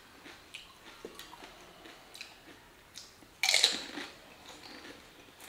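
Close-up mouth sounds of someone eating pani puri: soft chewing and small clicks, then about three and a half seconds in a loud crunch as a whole filled puri shell is bitten and breaks in the mouth, fading within about a second.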